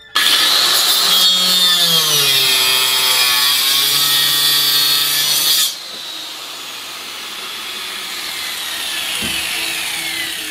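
Corded handheld power cutting tool cutting into a van floor. It starts suddenly and loud, its whine sagging in pitch under load. About halfway through it drops much quieter, with the whine falling.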